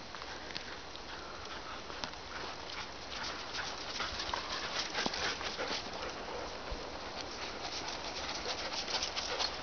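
Footsteps crunching through fresh snow: a steady run of short crackly crunches, thicker from about three seconds in.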